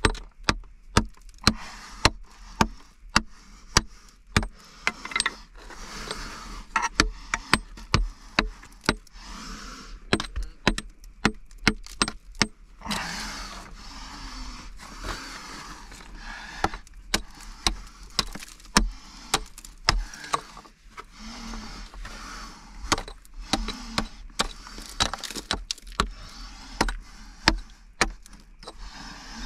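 Steady run of sharp knocks, about two a second, with stretches of scraping noise in between.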